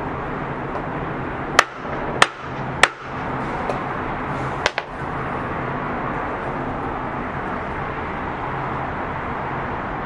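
Claw hammer striking a densely compacted aluminum foil ball on a cutting board: three sharp blows about half a second apart, then a fourth knock a couple of seconds later. A steady background hiss runs underneath.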